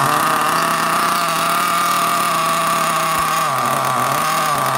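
Small .21 nitro engine of an RC buggy (HoBao Hyper 21) running at a steady idle, with a glow igniter on its plug. Its pitch dips briefly twice in the second half.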